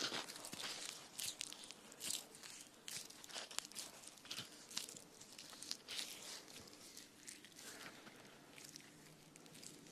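Close, irregular crunching and crackling: a dense run of short, sharp crackles, several a second.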